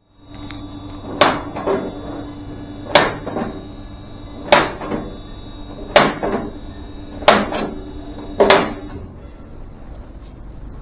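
Six sharp knocks at an even pace, roughly one every one and a half seconds, each followed by a couple of lighter knocks, over a steady hum that stops with the last knock.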